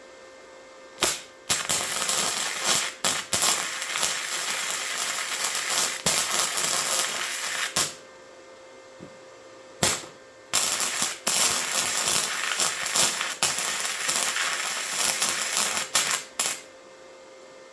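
Harbor Freight Titanium 125 flux-core welder's arc crackling and spitting in two runs of several seconds each, with brief breaks where the arc drops out. A steady faint hum from the welder sounds in the pauses.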